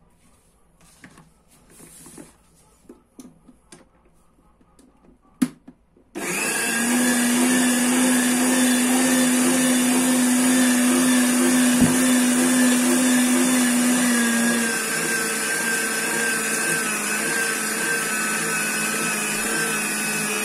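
A few seconds of light handling noises and a sharp click, then an electric meat grinder starts and runs steadily, mincing raw chicken meat. Its steady hum eases slightly about two-thirds of the way through.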